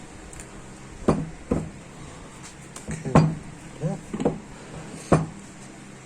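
Metal knocks and clanks on a power-steering rack's metal housing, about six sharp strikes at irregular intervals.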